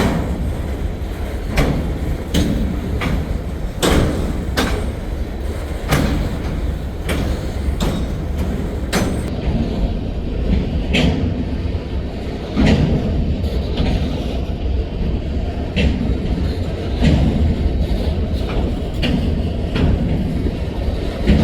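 Long freight train of trash cars rolling past: a steady low rumble of the cars with sharp, repeated clacks as the wheels cross rail joints.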